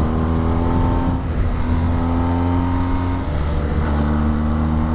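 BMW GS motorcycle engine pulling steadily up a climb, its note easing briefly about a second in and again a little after three seconds, over heavy wind buffeting on the microphone.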